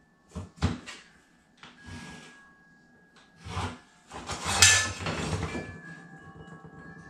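A metal speed square and pencil knocking and scraping on a laminate floor plank as a cut line is marked: a string of short knocks and scrapes, the loudest a little past halfway.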